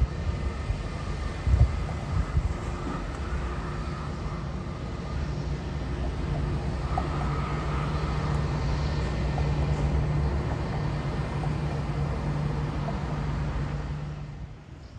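Airliner engines running, a steady rumble with a high whine that grows louder through the middle, then cuts off shortly before the end.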